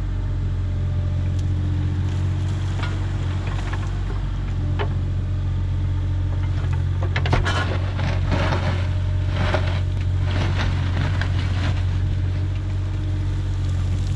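An engine running steadily at a constant speed, with a run of scraping and clattering noises from about seven seconds in.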